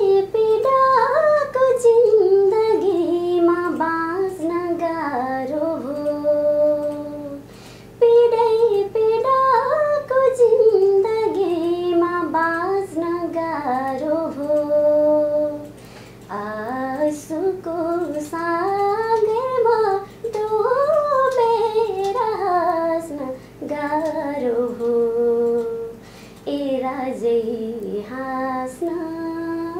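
A young woman singing a Nepali song alone, without accompaniment, in long phrases with short breaks between them and the pitch gliding up and down in ornaments.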